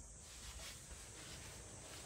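Faint background noise only: a steady high hiss and a low, unsteady rumble of light wind on the microphone, with no distinct event.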